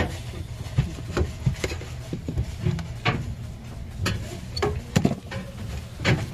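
Scattered light clicks and rubbing as fingers handle yellow plastic crimp connectors and wires while splicing a freezer's defrost heater wire, over a steady low hum.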